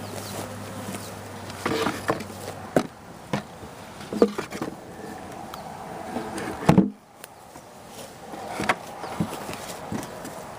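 Wooden beehive frames knocking and clicking against the hive box as they are lifted and set in, with honeybees buzzing. The loudest knock comes about two-thirds of the way through.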